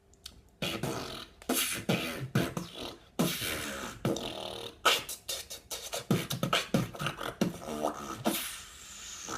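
Beatboxing: a man's mouth-made drum sounds, sharp clicks and hits mixed with short pitched vocal tones, in a quick, irregular rhythm. It starts about half a second in.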